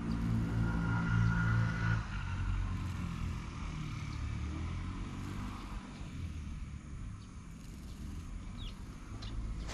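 Grey tabby cat purring steadily as its head is stroked; the purr is strongest for the first two seconds, then softer.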